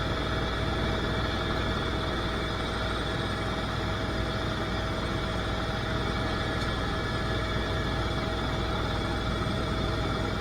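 Helicopter noise heard from inside the cabin: a steady engine and rotor drone with constant high tones over it, unchanging throughout.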